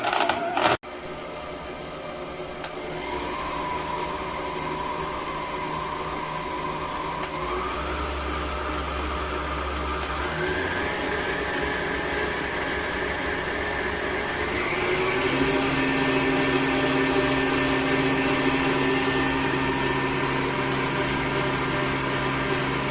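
Stand mixer's electric motor running with a steady whine that steps up in pitch and loudness several times as the speed setting is raised.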